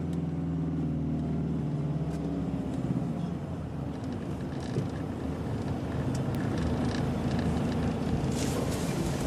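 Cars driving slowly in a motorcade: a steady engine and road hum, with a few faint clicks.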